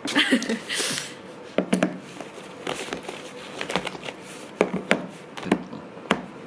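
Plastic film packaging crinkling, followed by a scattering of sharp clicks and knocks as hard plastic food containers and their lids are handled on a table.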